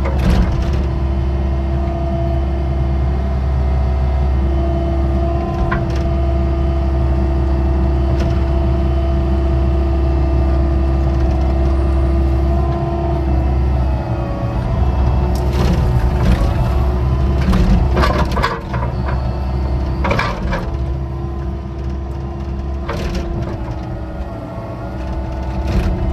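Excavator working a ditch: the engine runs with a steady drone and whine, broken by sharp cracks and knocks as the bucket digs, several of them in a cluster past the middle and a couple more near the end.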